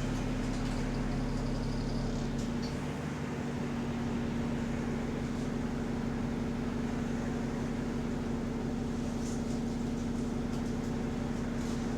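Bus engine running steadily, heard from inside the passenger cabin as a constant low drone with a steady hum. The bus has an exhaust leak, which is barely audible from inside.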